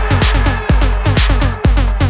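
Techno in a live DJ mix: a steady four-on-the-floor kick drum at about 125 beats a minute under dense, repeating synth stabs that drop quickly in pitch.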